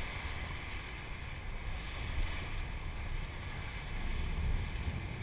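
Steady low rumble of a sportfishing boat's engines running at sea, with wind on the microphone and the hiss of the sea.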